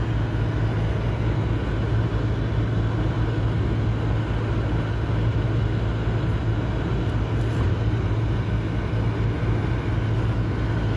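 2009 Ford Explorer's engine idling steadily with the air conditioning on, a constant low hum with no change.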